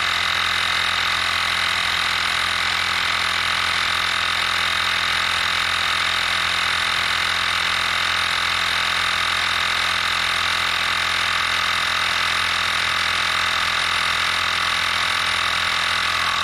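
EAFC cordless rechargeable tire inflator's compressor running steadily, without change in pitch or level, as it pumps up a nearly flat bicycle tire toward its 40 psi shut-off.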